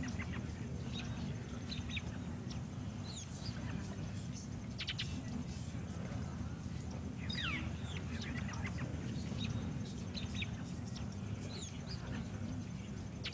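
Birds chirping now and then with quick calls that slide downward in pitch, over a steady low background rumble.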